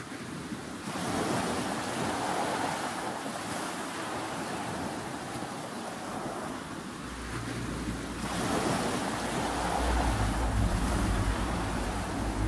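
Ocean surf in the intro of a chillout track: two long swells of breaking-wave noise. A low bass note comes in about seven seconds in and sustains underneath.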